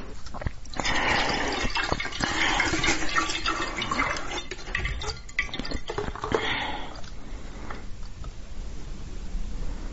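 Plastic bottle crackling with liquid sloshing and splashing as a frozen ice column is worked free of it. The sound is densest for the first several seconds, then thins to quieter handling.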